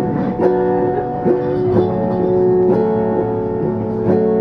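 A 1982 Oscar Schmidt Centurion autoharp, chromatic-tuned, strummed in chords, each strum ringing on into the next, with the chord changing every second or so.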